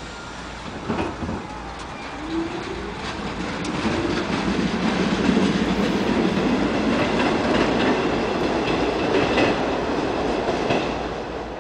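Subway train running and growing louder over the first few seconds, its wheels clacking over rail joints, with a brief rising whine about two to four seconds in.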